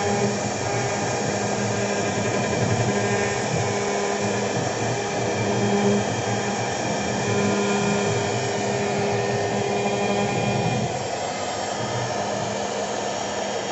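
CNC router spindle running steadily as a V-bit carves MDF: a constant motor hum with an even hiss of cutting noise.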